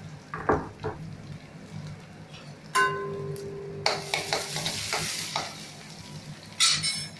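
Tempering spices frying in hot sesame oil in a kadai and being stirred. A ringing metal clink comes about three seconds in, followed by a loud burst of sizzling lasting about a second, and a shorter burst of sizzling near the end.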